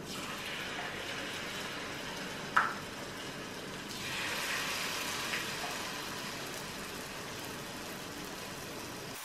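Coconut oil sizzling in a small saucepan as batter-coated jackfruit pieces are dropped in to deep-fry. The sizzle swells about four seconds in, as a piece goes into the oil. There is a single sharp tap, like a spoon against the pan, about two and a half seconds in.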